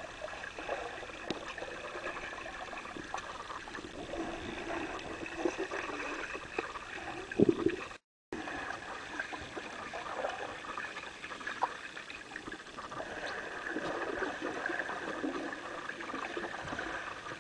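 Rushing, gurgling water with scattered short knocks and splashes, the loudest just before a brief dropout about eight seconds in.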